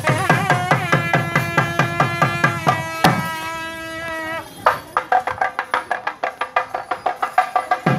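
Temple procession music: drums beating a fast, even rhythm of about four strokes a second under a held melody line. About three seconds in a sharp hit stops the drumming while a single note carries on, and the drums start again a little before five seconds.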